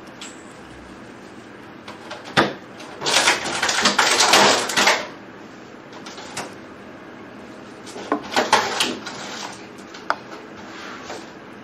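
Handling noises from pulling pin bones out of a salmon fillet with metal tweezers: a sharp click, then a couple of seconds of loud rustling. A shorter bout of rustling follows, then another sharp click.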